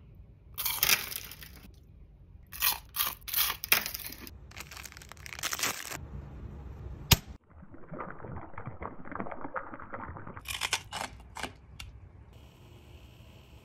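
Airy freeze-dried candy crunching and crackling as it is snapped apart and bitten, in a series of short crisp crunches with one sharp snap about seven seconds in.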